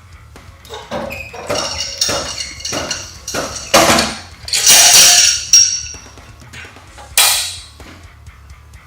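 A series of loud metallic clanks and knocks with short ringing, heaviest about four to five seconds in and once more near seven seconds.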